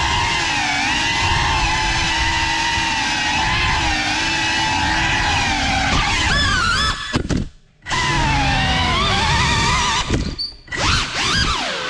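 GEPRC Cinelog35 cinewhoop drone's motors and propellers whining, the pitch rising and falling with throttle. The sound falls away almost to nothing twice, a little past halfway and again near the end, as the throttle is cut.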